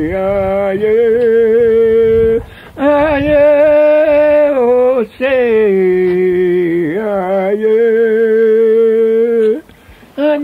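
A man singing a Jamaican Maroon Anansi song, unaccompanied, in an old field recording. He holds long drawn-out vowels in three phrases with brief breaks between them, and the last phrase stops shortly before the end.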